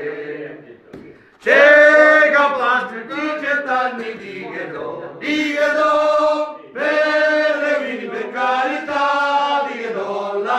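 A group of men singing a song together. The singing drops away briefly and comes back in loudly about a second and a half in.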